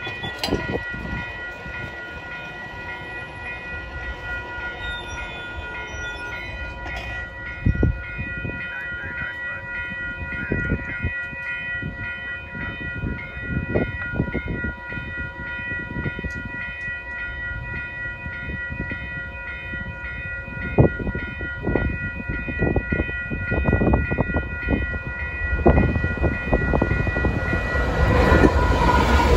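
Level-crossing warning bell ringing steadily as a freight approaches. Near the end the lead diesel locomotives, GE units of Canadian Pacific, arrive at the crossing with a loud low engine rumble and wheel noise.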